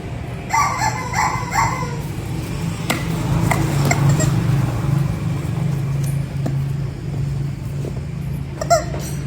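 A motorcycle engine running at a steady idle, a low even hum. Over it come short high calls that bend up and down: a few about a second in and two more near the end.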